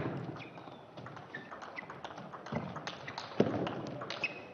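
Table tennis rally: the plastic ball clicking sharply off the rubber-faced bats and the table, many times in quick succession, the first hit loud. A few short high squeaks, likely the players' shoes on the court floor, run in among the hits.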